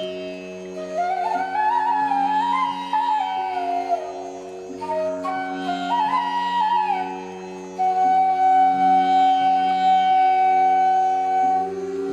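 Indian-style instrumental background music: a flute melody stepping up and down in pitch over a steady drone, settling on a long held note about eight seconds in.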